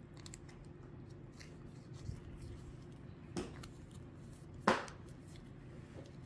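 A cat licking at a squeeze-up treat tube with a few faint clicks, then two short sharp noises about three and a half and nearly five seconds in, the second the louder, over a low steady hum.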